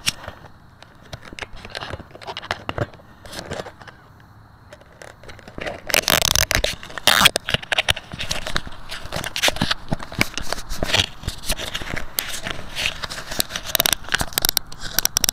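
Dense, irregular crackling and rattling on the microphone of a small camera carried on an RC helicopter. It is fairly quiet at first and turns much louder about six seconds in, with no steady motor or rotor tone standing out.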